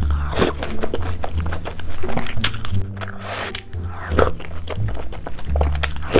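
Wet, messy eating close to the microphone: spoonfuls of bread soaked in thick milk sauce being taken into the mouth and chewed, with frequent mouth clicks and smacks. Background music with a steady bass pulse plays underneath.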